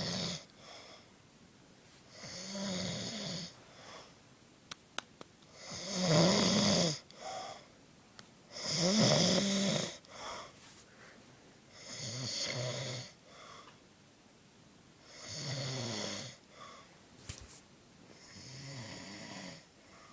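A man snoring in deep sleep: six long rasping snores, one about every three seconds, the two in the middle the loudest.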